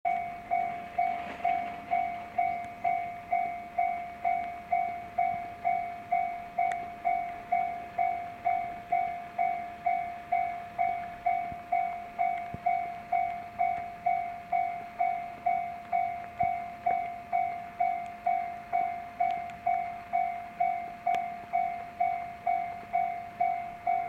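Japanese level-crossing warning bell ringing in a steady rhythm, just under two strikes a second, each strike a single pitched ring that fades before the next: the crossing is closed for an approaching train.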